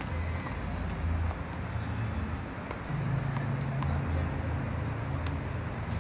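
Low steady rumble between tennis points, with a few faint short taps from a tennis ball being bounced on the hard court before a serve.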